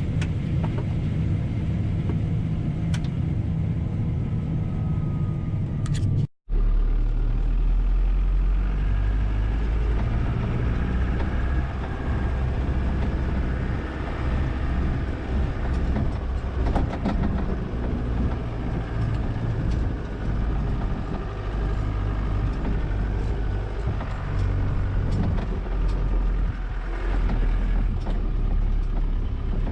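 Large farm machine's diesel engine running steadily. It drops out abruptly about six seconds in, and a deeper, steady drone continues after that.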